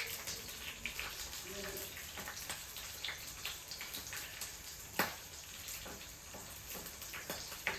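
Green chilies frying in a little hot oil with mustard seeds and cumin in an earthen pot: a steady sizzle with scattered small crackles and pops, one sharper pop about five seconds in.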